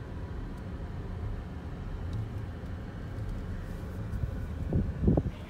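Low, steady rumble of a car driving slowly, heard from inside the cabin, with two short thumps near the end.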